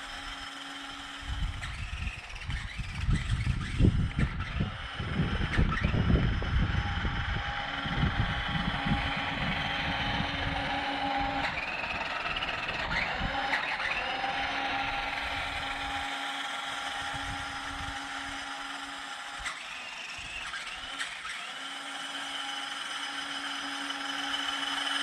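Small electric drive motors and gearboxes of a JJRC Q137 8x8 skid-steer RC vehicle whining at full throttle, the pitch briefly dipping and rising around the middle. A rough low rumble runs under it, loudest in the first half.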